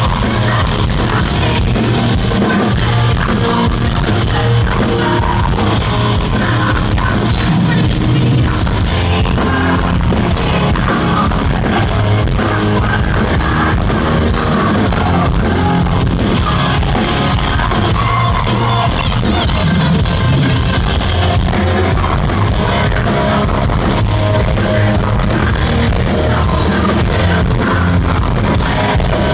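Heavy metal band playing live: electric guitars, bass guitar and drum kit keeping a steady beat, with a man singing.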